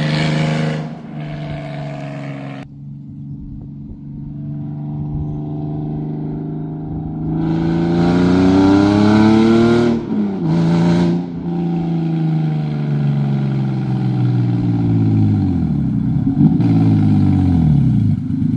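Toyota 2JZ inline-six in a Mk3 Supra accelerating hard, its note rising, with a gear change about ten seconds in. The revs then fall away steadily as the car slows and draws near.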